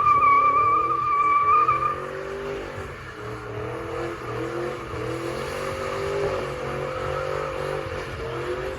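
Car doing a spin-off: tires squeal for about two seconds over the engine, then the engine keeps revving up and dropping back in uneven waves.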